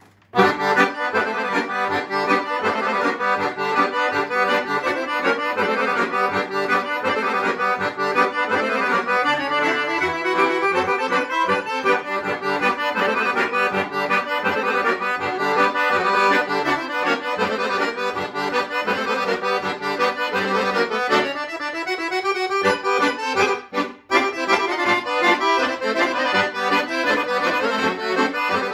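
Two chromatic button accordions, a Guerrini and a Dallapé, playing a kolo together as a duet: a fast, rhythmic folk dance tune with dense chords and melody. There is a brief break in the playing near the end.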